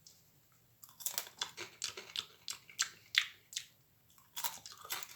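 Close-up chewing and crunching of burnt, overcooked microwaved marshmallow: a quick run of crisp crunches starting about a second in, with a short pause near the middle.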